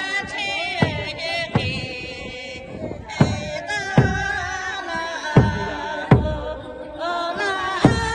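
A group of women singing a folk song in unison through a microphone and loudspeaker, with a large rope-laced barrel drum beaten in a slow pattern of paired strokes. The drum strokes are the loudest sounds.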